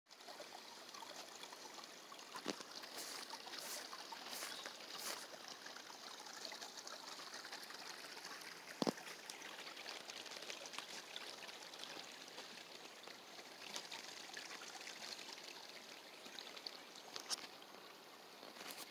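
Shallow woodland brook trickling steadily over stones, faint and even. A few sharp clicks are heard, with one louder knock about nine seconds in.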